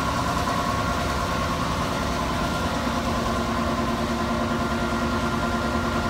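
Steady running drone of HVAC machinery, most likely the Carrier air handler's electric motor driving its blower by belt, with several steady held tones; a lower tone comes in about halfway through.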